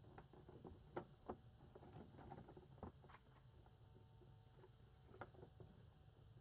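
Faint scattered clicks and taps, a few over several seconds, of the 2000 Toyota Celica's air filter housing being unclipped and opened by hand.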